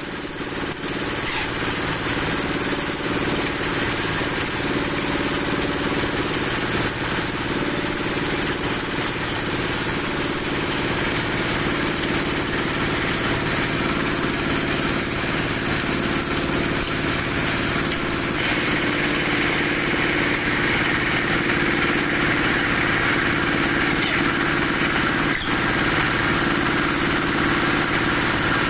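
Broom-handle dowel-making machine running steadily with a continuous mechanical hum and a high hiss. A little past the middle a rougher, hissier layer joins, and there is a single sharp click near the end.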